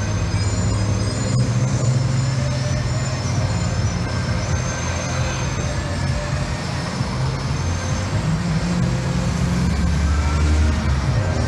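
Street traffic: cars and motorcycles driving past, over a steady low engine rumble.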